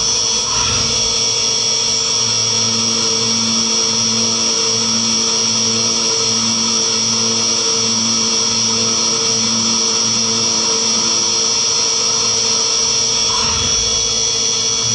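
CNC mini milling machine cutting aluminium plate with a small end mill under flood coolant. The spindle gives a steady high whine over the cutting noise, which pulses at a regular rhythm as the tool works around its path.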